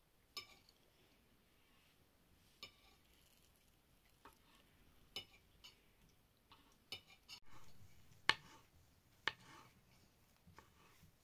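Kitchen knife slicing button mushrooms on a wooden cutting board: about a dozen sharp, irregular taps of the blade on the board, the two loudest in the second half.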